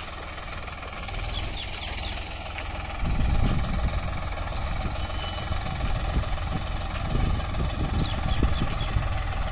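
Diesel engine of a Solis 50 hp four-wheel-drive tractor running under load as it drags a rear blade through soil to build up a field bund. It gets louder and heavier about three seconds in.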